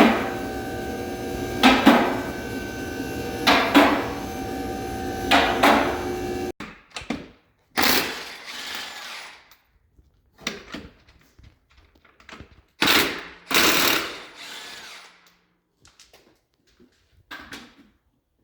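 An impact wrench running in short bursts, about one every two seconds over a steady machine hum for the first six seconds. After an abrupt cut, it runs in scattered bursts, as when lug nuts are being spun off or on a wheel.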